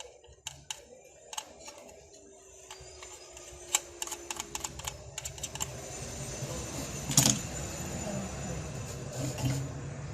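Irregular sharp clicks and taps, like buttons or keys being pressed, bunched together in the middle, with one louder knock about seven seconds in.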